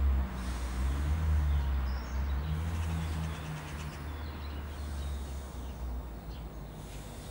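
Low, steady motor rumble, louder in the first few seconds, with faint high bird chirps.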